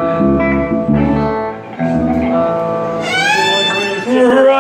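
Live rock and roll band: electric guitar chords over bass, with a high note sliding down in pitch about three seconds in.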